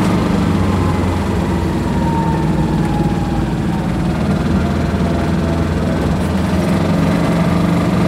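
Small 400cc Kubota diesel engine of an Aixam Mega Multitruck microcar van running steadily as the van drives slowly, heard from inside the cab close to the engine.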